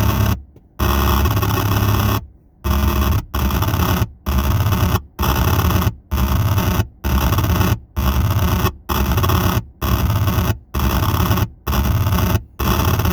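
Error Instruments Data Synth noise synthesizer putting out a loud, harsh wall of noise with a heavy low drone underneath, chopped into a steady pulse of bursts a little under one a second, each broken by a short gap of silence.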